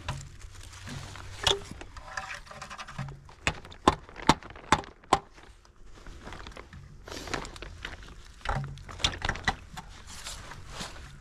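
A plastic maple sap collection bag being handled on its metal holder: rustling plastic and sharp clicks and knocks, with a cluster of clicks about midway and more rustling near the end.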